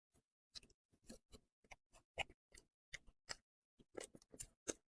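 Close-miked mouth sounds of eating a small soft bear-shaped cake: faint, irregular wet clicks and smacks of chewing, a few to several a second.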